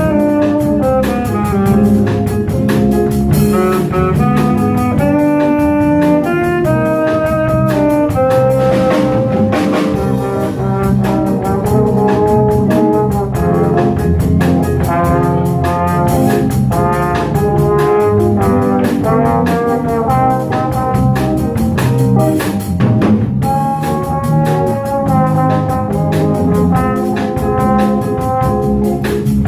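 Small jazz band of trumpet, tenor saxophone, trombone, piano, bass and drum kit playing live, with a brass horn carrying the melody over the rhythm section. The playing continues without a break.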